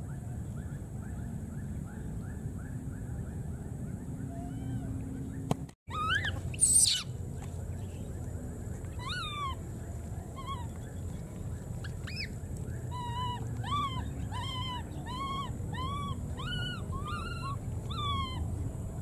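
Baby monkeys calling: a loud shrill cry about seven seconds in, then a long run of repeated arched, rising-and-falling coo calls, about two a second. Faint quick chirps come before them, and a steady low rumble runs underneath.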